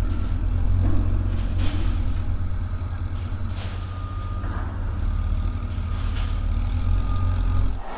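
Construction-site sound effects: a heavy vehicle's diesel engine running steadily, with several sharp clanks and a thin high whine in the second half.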